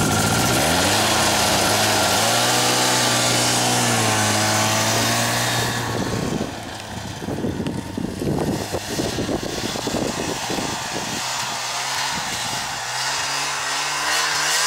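Ski-Doo Skandic SUV 550 snowmobile's two-stroke engine idling, then revving up about a second in and running at a steady pitch as it pulls away. About six seconds in it turns fainter and more distant under irregular crackling wind noise, then rises again near the end as the machine drives across.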